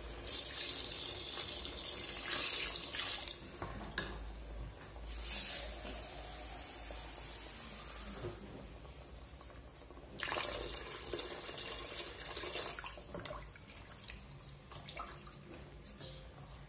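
Water poured into a stainless steel pot of boiled tomato sauce, splashing in three pours of about three seconds each: the sauce is being thinned with water.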